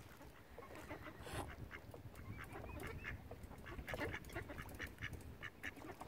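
Mallard ducks quacking in a scattered run of short calls, with a few higher calls among them.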